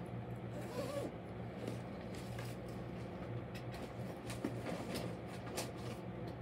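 Faint rustling with scattered light clicks and taps as a person rummages among and handles cloth project bags, over a steady low hum.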